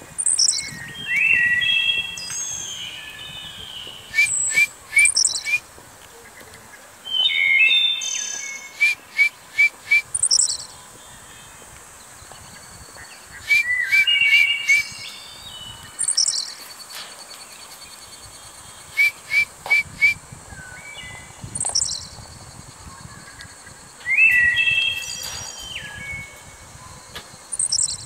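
New Zealand kaka calling in bursts of whistles every few seconds: quick runs of three to five short pips, and notes that slide up into a held whistle.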